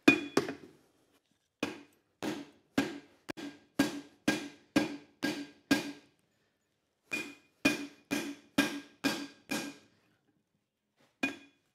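Hand hammer striking red-hot leaf spring steel on an anvil, about two blows a second, each with a short metallic ring. The blows come in two runs with a pause of about a second between them, and one more blow near the end.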